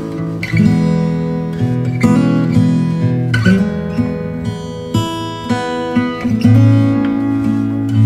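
Background music on a plucked and strummed acoustic guitar, with notes and chords struck every fraction of a second and left ringing.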